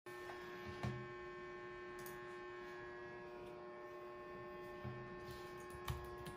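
Faint steady electrical hum: one constant low tone with a ladder of higher steady tones. A couple of soft brief knocks come about a second in and again near the end.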